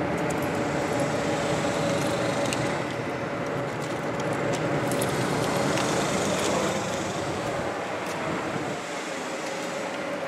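Steady background hum with a faint held tone, like distant traffic or outdoor machinery, easing slightly near the end. Over it come scattered light clicks and scratches from a small dog's claws gripping tree bark as it climbs.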